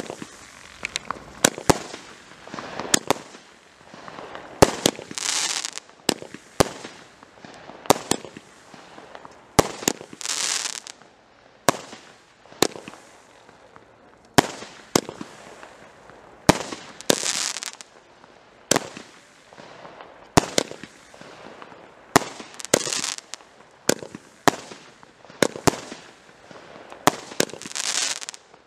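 Weco Full House firework cakes (19-shot batteries) firing: a string of sharp bangs, about one or two a second. Every five or six seconds a hissing crackle follows a burst.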